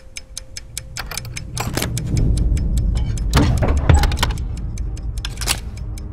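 Vintage aircraft cockpit sounds: a rapid run of metallic clicks and rattles as the controls are worked, with a few louder clanks. Beneath them a low rumble swells from about a second in.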